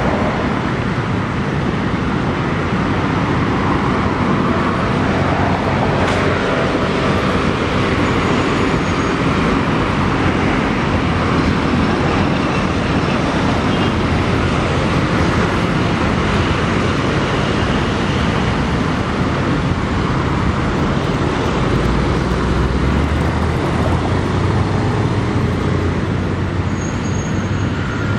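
Steady road traffic noise from passing cars and motor scooters, with a deeper low rumble swelling for a few seconds about three-quarters of the way through.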